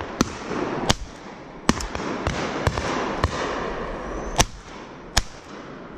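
Shotgun shots: about seven sharp reports, irregularly spaced at roughly one every half-second to second, the one about four and a half seconds in the loudest, from several guns firing at driven pheasants.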